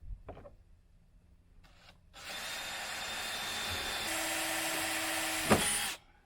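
Power drill running for about four seconds, boring 1/8-inch pilot holes for the slam latch's screws in the RV compartment door. Its whine shifts in pitch partway through, and there is a sharp click just before it stops.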